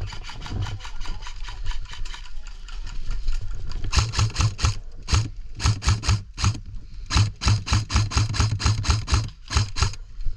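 An airsoft player running: quick regular footfalls, each with a rattle of carried gear, louder from about four seconds in.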